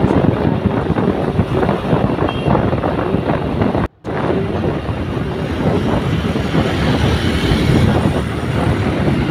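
Road noise from riding on a motorbike: wind buffeting the phone's microphone over the motorbike and passing traffic. The sound cuts out for a moment about four seconds in.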